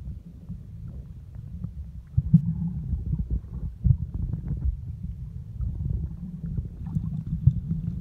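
Muffled low rumble of water moving around a camera held underwater, with irregular soft knocks and a few faint clicks.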